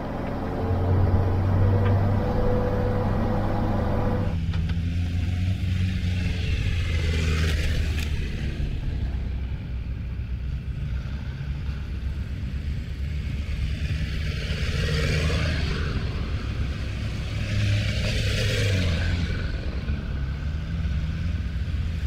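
All-terrain vehicle engine running steadily as the vehicle drives along a snowy track. The sound changes abruptly about four seconds in, and a few short rushing swells come and go over the engine hum.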